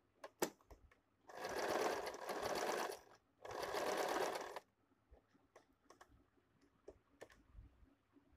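Sewing machine stitching in two short runs, about a second and a half and then about a second, with a brief stop between them. A few light clicks from handling the machine and fabric come just before and after.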